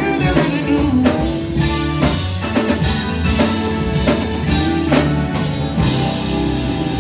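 Live gospel band playing, with drum kit hits over bass guitar and electric guitar.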